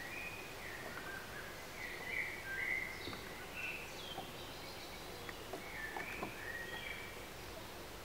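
Songbirds singing in several short chirping phrases, over a faint steady background hiss.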